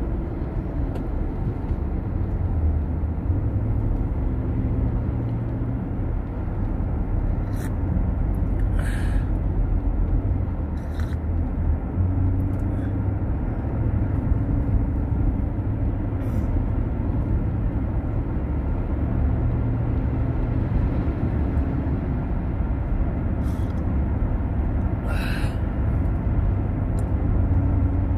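Steady low road and engine rumble inside a moving GMC Yukon XL, with a few faint, scattered clicks.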